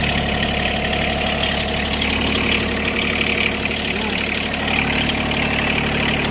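John Deere 1-series compact tractor-backhoe's small diesel engine idling steadily, freshly jump-started from a small USB jump-starter battery pack after its own battery could only click.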